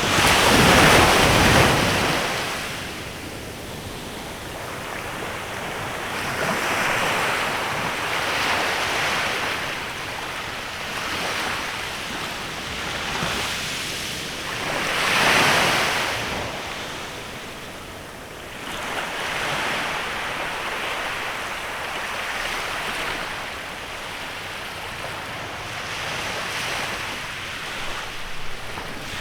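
Waves breaking and washing up on a beach in a bay, the surf swelling and fading every several seconds, strongest near the start and about halfway through.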